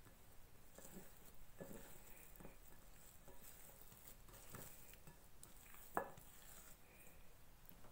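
Faint handling sounds of hands kneading and pressing down risen yeast dough in a glass bowl, with a slightly sharper tap about six seconds in.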